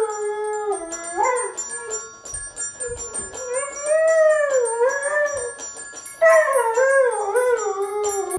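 A yellow Labrador retriever howling along to a child's toy xylophone: long wavering howls that rise and fall, in three stretches with short breaks, over quick, bright xylophone notes.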